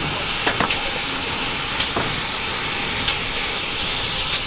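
Steady steam hiss from a GWR 5700 class pannier tank locomotive moving slowly, with about six short, irregular clanks.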